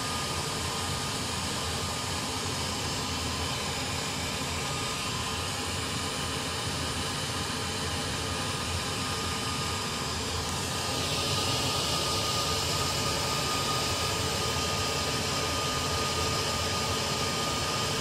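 Turkish centrifugal (squirrel-cage) blower fan running at full speed: a steady rush of air with a faint even whine, drawing air hard through its intake. About eleven seconds in the rush grows a little louder and hissier.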